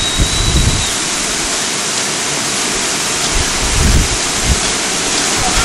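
Wind on the microphone: a steady rushing hiss with a few irregular low buffets.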